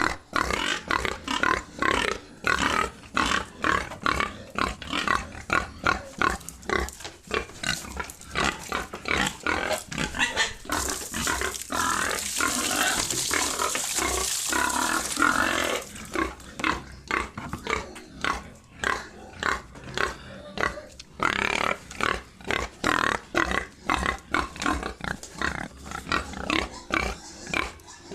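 Farm pigs grunting in short, rapid calls over and over. About halfway through there is a longer, harsher stretch of louder noise lasting several seconds.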